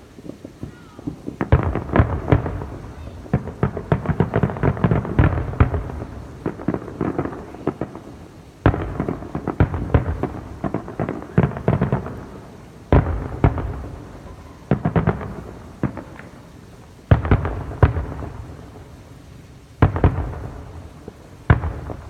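Aerial fireworks going off in repeated volleys: each starts with a sharp bang and runs on as a dense string of rapid crackling pops over a rumbling echo that fades before the next volley, with about seven volleys in all.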